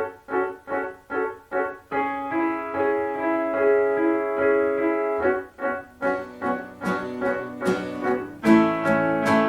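Instrumental background music on a piano-like keyboard. It opens with short repeated chords about two to three a second, moves to held chords, then picks up again with more struck notes near the end.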